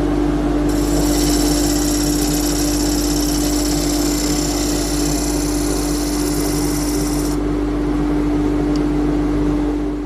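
Woodworking lathe running with a steady hum, turning a glued-up wooden cup blank. From about a second in until about seven seconds, a high hiss is added as the homemade turning tool cuts the outside of the spinning cup, then stops abruptly.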